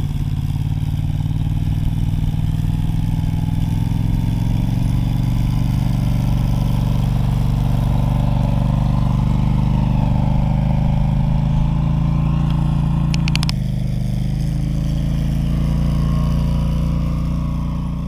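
Polaris Sportsman 850 ATV's twin-cylinder engine running steadily as the quad is ridden across a field at low speed, with a slight change in the engine sound about two-thirds of the way through.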